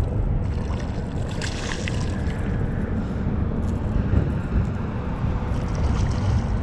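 Wind buffeting the microphone in a steady low rumble, with a few short clicks; about six seconds in, a hooked flathead catfish thrashes at the surface, splashing water.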